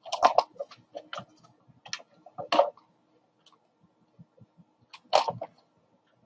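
Handling noise close to the microphone: a series of short, sharp clicks and knocks, several in quick succession at the start, a few more over the next couple of seconds, and another cluster about five seconds in.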